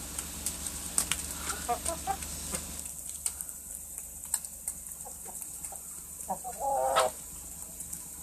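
Light Brahma chickens clucking in short calls, with scattered sharp ticks. A louder, longer call comes near the end.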